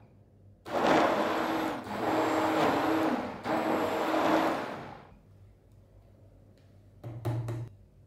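Electric blender running in three short pulses of about a second each, with a steady motor hum under a noisy whir. A brief, quieter burst of sound comes near the end.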